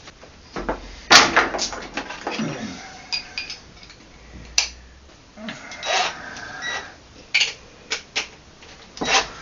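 Metal tools and parts being handled, clinking and clattering in a string of irregular knocks, the loudest about a second in.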